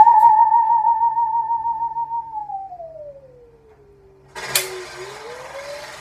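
Singing saw holding a high note with a wavering vibrato, then gliding slowly down and fading. About four and a half seconds in, a sudden loud burst of construction noise breaks in and stays as a steady din, with the saw's note rising again under it.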